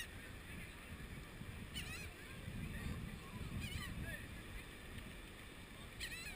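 Seagull calling: short, wavering cries about two seconds apart, over a low steady rumble.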